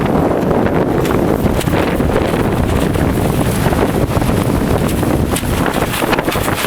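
Blizzard wind blasting across the microphone: a loud, continuous buffeting rumble with constant gusty fluttering.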